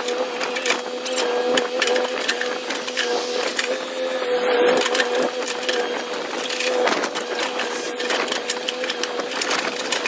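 Mini excavator's engine running with a steady drone, with many short cracks and knocks as the bucket digs into soil and roots around a tree stump.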